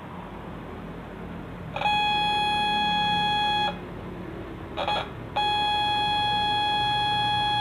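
Horn driver unit speaker sounding a steady, high beeping test tone from a hooter signal, twice, each lasting about two seconds, with a short crackle in between as the test leads touch the terminals.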